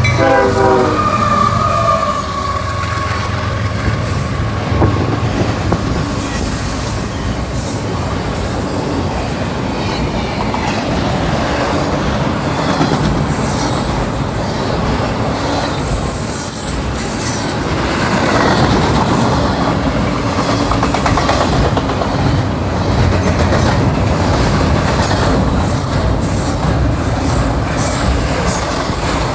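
CSX freight train passing close by at speed, about 48 mph. The locomotive horn cuts off with a falling pitch right at the start as the locomotives go by. Then the double-stack container cars roll past in a steady rumble and clatter of wheels on rail.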